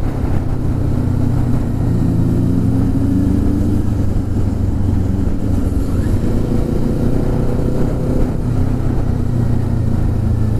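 Motorcycle engine running under way, its pitch climbing and easing off several times with the throttle, and dropping sharply about eight seconds in, over a steady rush of noise.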